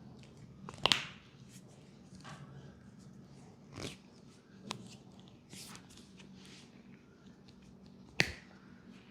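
Sharp snaps and cracks from a hands-on leg massage: a few isolated loud cracks, the loudest about a second in and another near the end, with softer clicks between.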